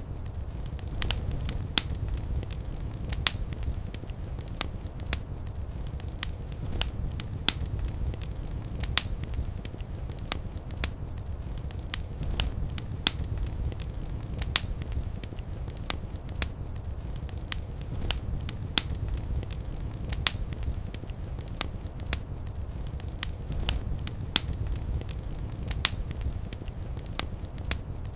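Wood fire burning in a fireplace: a steady low rumble of the flames with irregular sharp crackles and pops, several a second.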